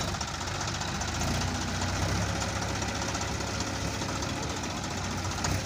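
Two diesel tractors, a Swaraj 855 FE and a Powertrac Euro 50, running steadily under heavy load in a tug-of-war, their engines labouring as the rear tyres dig into the sand.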